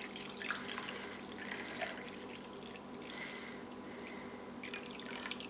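Hot milk poured from a jug into a glass cup: a faint trickling splash, with a few light clicks near the end.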